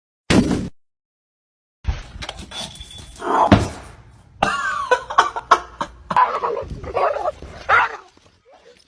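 A dog vocalizing in a series of short bursts, with sharp knocks in between.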